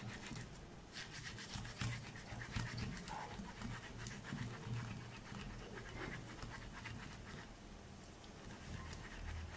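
Watermelon flesh rubbed by hand against a stainless-steel mesh strainer to press out the juice and hold back the seeds: a faint, repeated rasping of short strokes.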